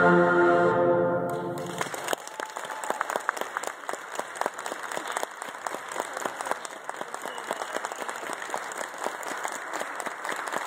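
A concert band's final held chord dies away in the first two seconds, then the audience applauds steadily.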